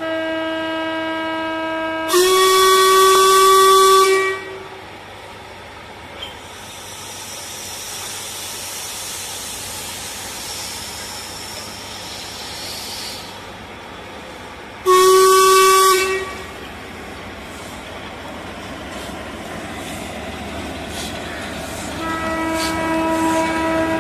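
Steam locomotive whistle blowing on departure: a held blast at first, then a louder, higher blast with a rush of steam about two seconds in. A steady hiss of steam runs on, another short loud whistle blast comes about fifteen seconds in, and faint knocks and a further whistle come near the end.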